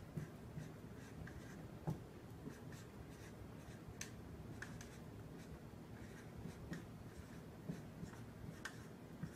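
Dry-erase marker writing on a whiteboard: faint, irregular short squeaks and taps of the marker tip against the board as words are written.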